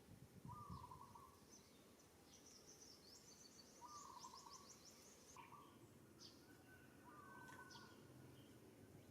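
Faint bird calls: a short warbling note repeated four times a second or two apart, with thin high chirps and a quick trill in between.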